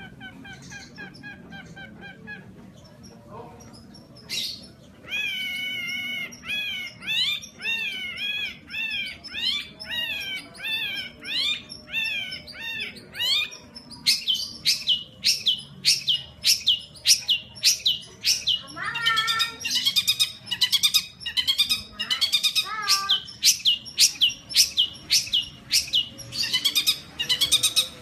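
Caged long-tailed shrike (pentet) in full song: soft repeated chirps, then a string of wavering whistled phrases, then from about halfway a long, fast series of sharp, loud rising notes.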